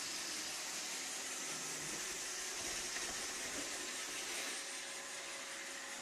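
iRobot Roomba 761 robot vacuum running as it drives across the floor: a steady hiss of its vacuum motor and brushes.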